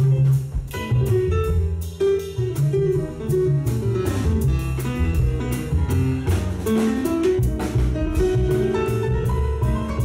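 Live jazz band playing an instrumental passage: double bass notes underneath, a drum kit keeping time with regular cymbal strokes, and a melodic line above.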